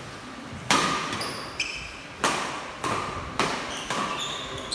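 A run of about six sharp slaps or knocks, one every half second to a second, several followed by short high ringing tones.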